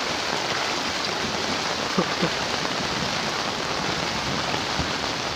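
Heavy tropical rain falling steadily, an even hiss with no pauses.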